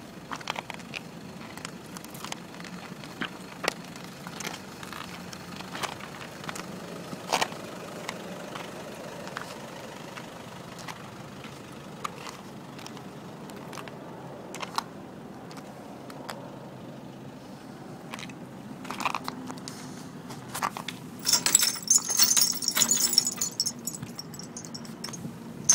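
Crunching steps on loose stones, with scattered light clicks. For a few seconds near the end, the chains and small bells hanging from the jingle truck's bumper jangle brightly.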